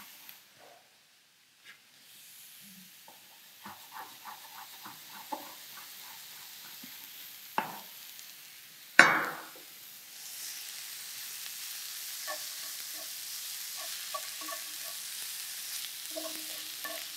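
Chef's knife slicing oyster mushrooms on a wooden cutting board, a run of light taps. About nine seconds in, a loud burst as the mushrooms go into the hot oiled frying pan, then a steady sizzle of them sautéing.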